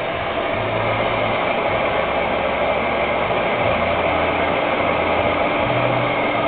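LeBlond engine lathe running steadily in reverse under power, its gearing and spindle whirring as the carriage feeds the tool along a thread-cutting pass.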